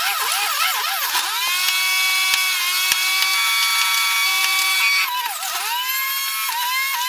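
Centrifugal juicer motor running with a high whine while apple, celery and ginger are pushed down the feed chute. Its pitch repeatedly sags and recovers as the produce loads the spinning cutter. It holds steady for a few seconds in the middle, then sags again several times near the end.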